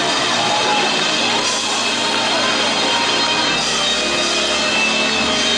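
Loud gospel praise music with drums and instruments, played through the sanctuary, with the congregation clapping along.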